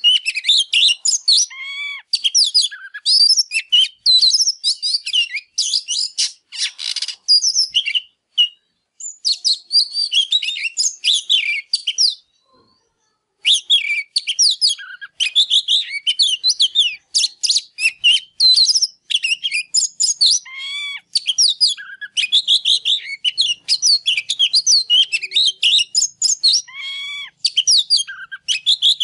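Male Oriental magpie-robin in full, fired-up song: a fast, continuous stream of varied whistles, trills and chattering notes, with a harsh rasping note about seven seconds in and a brief pause a little before halfway.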